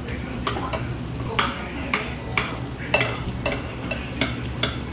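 Pork bulgogi sizzling in a hot pan over a portable gas burner, with metal chopsticks clicking and scraping against the pan about twice a second as meat is picked out.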